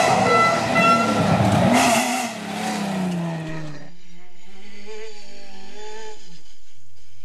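Off-road rally car engine at full power passing close, its note falling in pitch as it goes by, with dirt spraying. About four seconds in, the sound cuts to a duller, thinner recording of a rally car's engine revving up and down as it slides on a dirt track.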